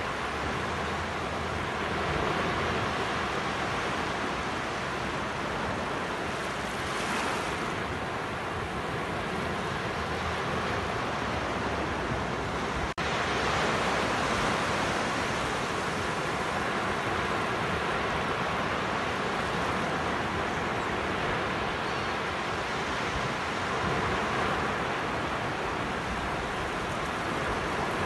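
Sea surf breaking and washing up a sandy beach: a steady rush of waves that swells and eases every few seconds. The sound cuts out for an instant about halfway through.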